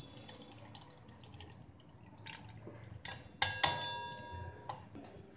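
Blended coconut milk pouring and dripping faintly through a steel strainer into a steel pot, then, about three and a half seconds in, two sharp metallic clinks a fraction of a second apart as steel knocks on steel, the metal ringing on for about a second after them.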